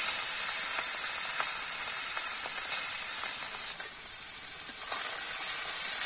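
Small fish sizzling as they fry in hot oil in an aluminium karai: a steady hiss, strongest at first and easing a little, with a few light clicks.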